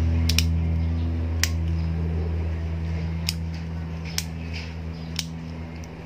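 Sharp plastic clicks, about one a second, as the pieces of a motorcycle handlebar switch housing are handled and pressed into place. Under them a steady low mechanical hum slowly fades.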